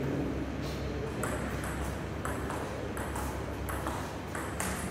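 Table tennis rally: the ball clicking sharply off the bats and the table, about two to three hits a second, over a steady low hum of the hall.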